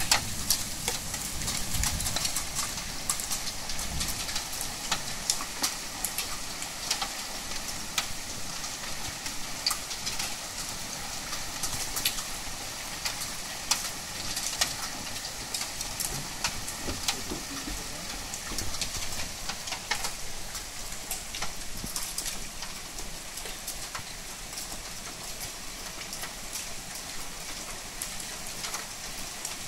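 Heavy rain pouring down in a thunderstorm: a steady hiss of rainfall with many sharp drops pattering close by, loudest in the first couple of seconds and easing slowly after.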